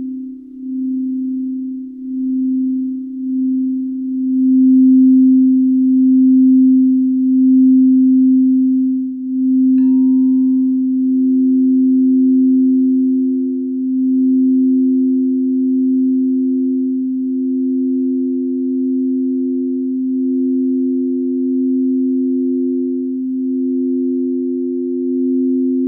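Frosted quartz crystal singing bowls sung with mallets: one pure held tone that swells and fades. About ten seconds in, after a faint tap, a second higher bowl joins, and the two ring together with a slow pulsing.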